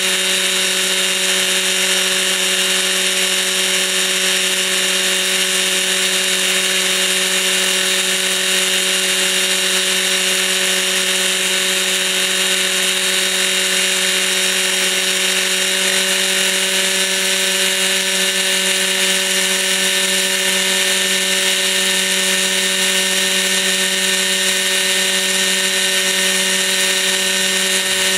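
O.S. .61 SX two-stroke glow engine of a Kalt Baron Alpha 60 model helicopter running at a steady speed and driving the spinning main rotor while the model sits on the ground. Its buzzing whine holds one pitch throughout.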